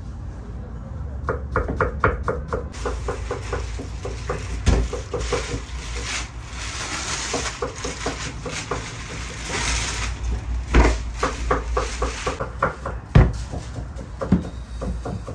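A knife chopping onions in quick taps on a board. Then plastic sheeting rustles as it is pulled off a coil of dough, with a few knocks of dough and hands on a steel worktop near the end.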